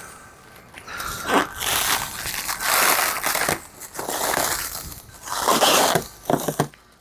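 Plastic stretch wrap crinkling and crackling as it is pulled off a large machine by hand, in several separate rustling pulls.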